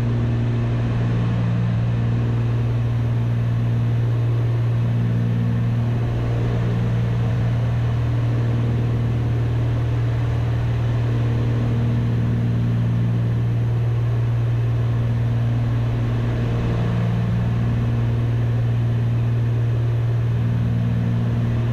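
Cabin drone of a Cessna 310's twin piston engines and propellers in steady cruise, heard from inside the cockpit. A strong steady low hum, with a slow rise and fall in the drone about every four seconds.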